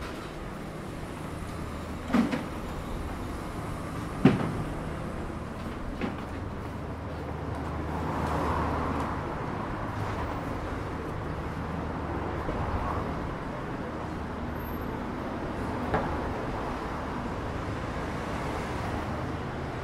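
Busy street ambience: a steady low traffic hum, with a vehicle swelling past about eight seconds in. Several sharp knocks are heard, the loudest about four seconds in.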